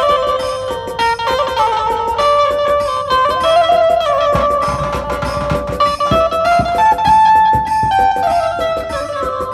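Dhumal band music: a loud, bright lead melody moving in quick stepwise notes over steady drumbeats, with heavier bass drum hits about halfway through.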